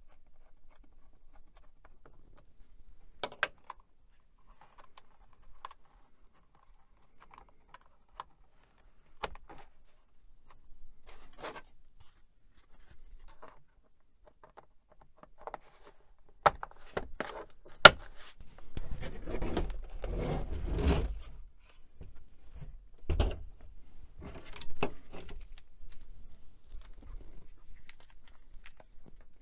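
Hands handling metal computer hardware while a hard drive is installed: scattered sharp clicks and knocks, then a burst of scraping and rattling a little past halfway, led by the loudest click.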